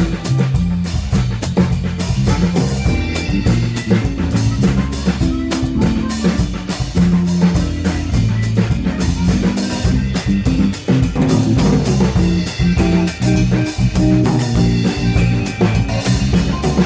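Live band instrumental: a drum kit played close up, its cymbals and drums prominent, over an electric bass line and guitar.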